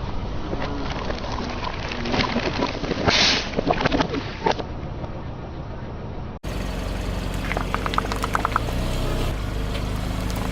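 Crunching and crackling as objects are crushed under a car, loudest in a few bursts around three to four seconds in. After an abrupt cut, a car engine runs steadily with a quick row of clicks.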